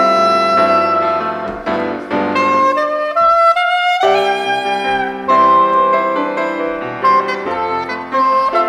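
Saxophone and piano duo playing live: the saxophone carries a sustained melody over sparse piano chords, with a quick rising run of notes about halfway through.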